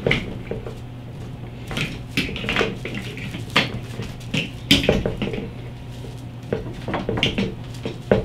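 Irregular clicks, knocks and rattles of a motorcycle handlebar control housing and its wires shifting on a tabletop as the wiring is pushed and tugged through the handlebar, with one sharper knock about halfway through.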